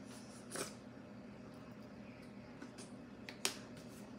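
Quiet kitchen handling sounds over a low steady hum: two short knocks of a utensil, about half a second in and again, sharper, near three and a half seconds, as a spoon and a jar of mayonnaise are picked up.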